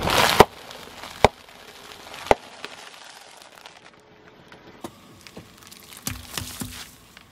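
Sealed food packets crushed under a car tyre: a crunching burst as the wheel rolls onto them, then two sharp pops about a second and two seconds in. About six seconds in, a plastic-foil juice pouch bursts under the tyre with a spraying splatter.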